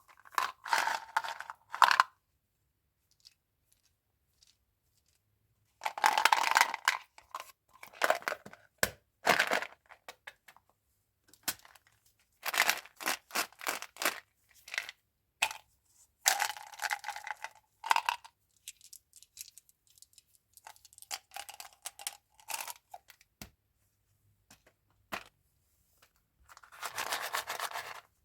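Gum and candy packaging being torn open and crinkled by hand, in bursts of a second or two with silent gaps between them.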